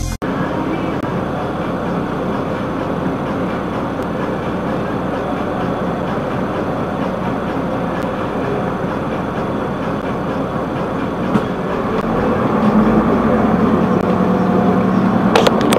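A car's road and engine noise as picked up by a dashcam mic inside the car: a steady rumble and hiss. About twelve seconds in it grows louder, with an engine hum, as the car moves off. A short sharp click comes just before the end.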